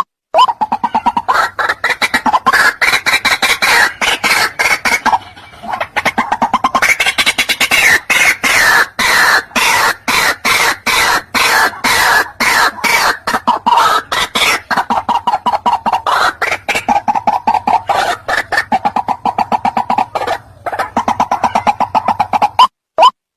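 White-breasted waterhen calling: a long, fast run of repeated croaking notes, about three or four a second, that briefly thins out twice.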